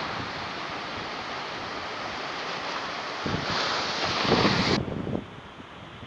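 Sea surf washing and breaking against a rocky shore, with wind buffeting the microphone. A wave surges louder about three seconds in, then the sound cuts off abruptly to a quieter, steady hiss.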